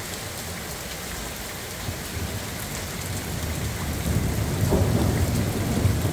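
Steady rain falling in a thunderstorm, with a low rumble of thunder building from about halfway and loudest near the end.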